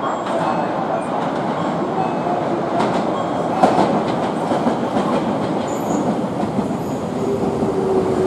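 Tokyo Metro 03 series VVVF-controlled train running into the station past the platform, with a steady rumble and a couple of sharp clacks from the wheels over rail joints. Near the end a steady, slightly falling whine from the traction motors joins in as it slows.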